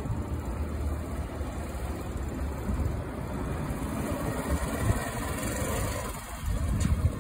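A 125 cc motorcycle's engine running steadily at low speed as it is ridden slowly.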